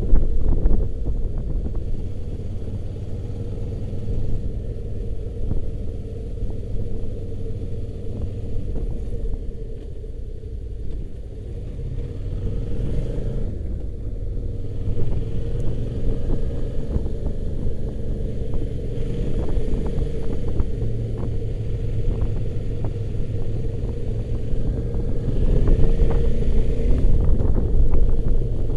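Motorcycle engine running steadily while riding, its pitch rising a little now and then, with wind buffeting the microphone.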